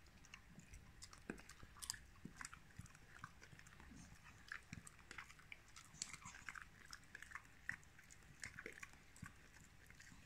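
A Staffordshire bull terrier chewing a chew treat: faint, irregular crunching and clicking of her teeth on it.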